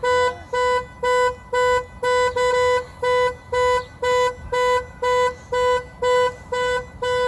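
Car alarm going off: short, one-pitch horn honks repeating evenly about twice a second.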